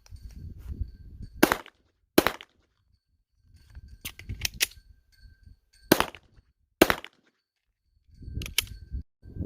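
Canik TP9SFX 9mm pistol firing about nine shots at an uneven pace, some in quick pairs and a fast triple, with low rumbling noise between shots.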